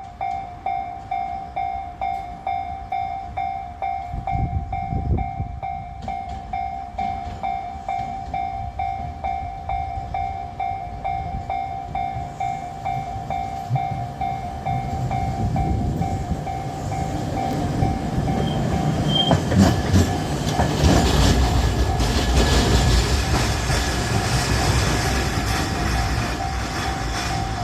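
Level-crossing alarm ringing in a steady, evenly repeating tone while Kagoshima City Tram car 613, built in 1962, approaches and passes over the crossing. The tram's rumble grows through the second half and is loudest near the end, with a few sharp wheel clacks about two-thirds of the way through.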